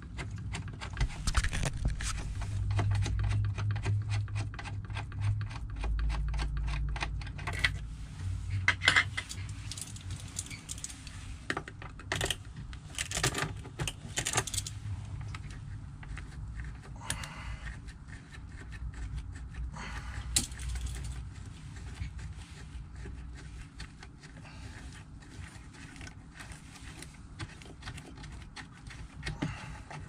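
Gloved hands working at a truck's shift levers: quick clicks, small metallic rattles and cloth handling as a bandana is wrapped around a shift stick and chrome parts are handled. A low rumble sits underneath, strongest in the first few seconds.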